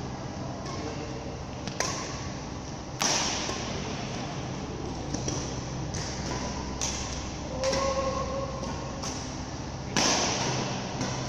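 Badminton rackets striking the shuttlecock during a rally, sharp cracks at irregular gaps of one to three seconds, over a steady low hum of hall ventilation.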